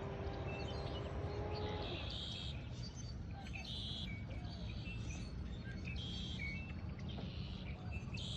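Dawn bird chorus: short buzzy calls repeat about once a second over a steady low rumble. A steady low hum fades out about two seconds in.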